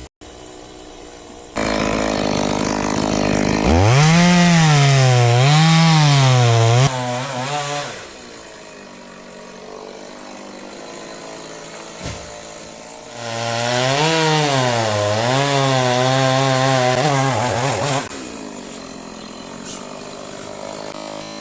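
Stihl two-stroke chainsaw cutting coconut palm wood. It is revved in two runs of a few seconds each, with the engine pitch swinging up and down under load, and drops back to a lower running sound between and after the runs.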